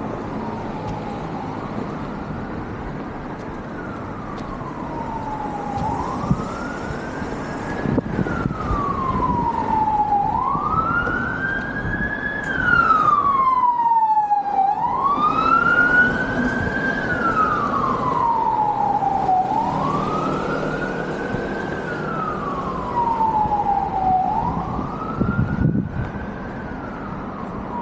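Emergency vehicle siren in a slow wail, rising quickly and falling more slowly about every four and a half seconds. It grows loudest around the middle and eases off toward the end.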